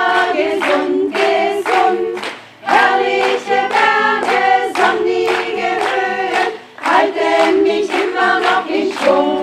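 A women's choir singing together, its phrases broken by two short pauses for breath.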